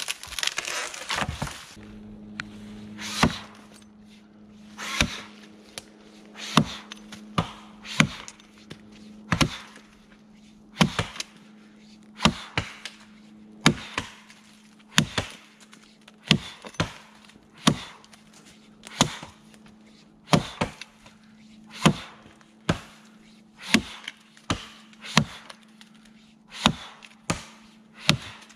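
Axe chopping into the base of a standing tree: sharp strikes, about one a second, in a steady rhythm. It opens with a short rush of crackling and rustling as a half-cut stem is pushed over. A steady low hum runs faintly underneath.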